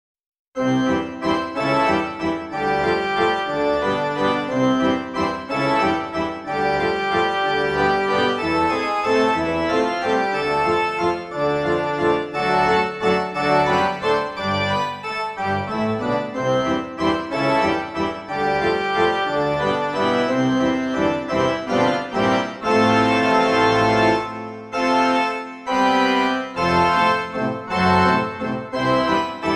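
Background instrumental music with a steady run of melodic notes, starting about half a second in.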